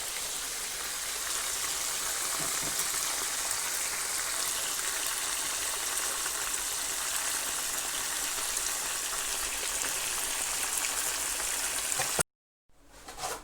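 Chicken wings deep-frying in hot oil on the first fry, a steady dense sizzle that cuts off suddenly near the end.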